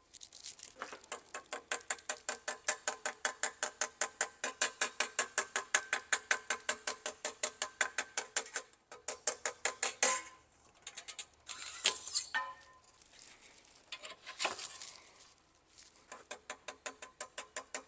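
Rapid, even light taps of metal on metal, about six or seven a second: the trombone slide tube is being tapped over a precision dent rod to knock down its high spots. The tapping stops for a few seconds around the middle, where there are a few single louder knocks and scrapes, and starts again near the end.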